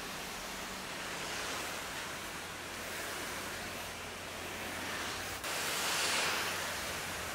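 Steady hiss of water spraying onto a car's paint from a pressure washer, with a faint low hum under it; the spray gets louder for a couple of seconds after a brief break about five seconds in.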